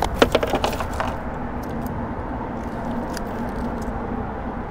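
Landing net holding a netted sheepshead swung aboard a boat, a quick cluster of rattles and knocks in the first second, then a steady background hiss.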